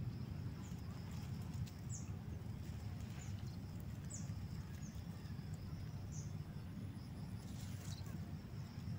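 Faint waterside ambience: a bird gives short, high, falling chirps every second or two over a steady high insect hum and a low rumble.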